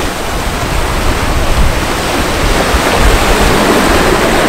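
Steady rush of open-ocean waves and wake around a sailing catamaran under way, with wind buffeting the microphone in uneven low rumbles.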